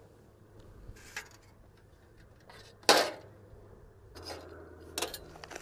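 Metal camping cookware clattering as a thin aluminium windshield is set up around a Trangia alcohol burner: a few light clinks and one sharp, louder metallic clank about three seconds in.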